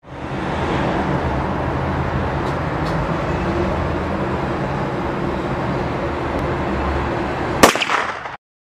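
Steady rumble of road traffic, ended by one sharp, loud bang with a couple of quick knocks after it, then the sound cuts off suddenly.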